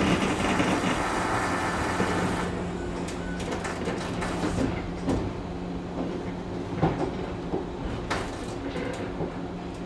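JR West Series 103 commuter car at a station stop: a burst of air hiss lasting about two and a half seconds, typical of the pneumatic doors sliding open, over the steady hum of the car's onboard equipment, with a few knocks later on.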